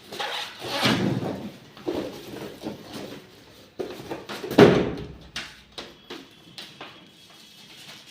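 Handling noises from unboxing a water purifier: a series of knocks and scrapes, the loudest a thump about four and a half seconds in, then lighter clicks near the end.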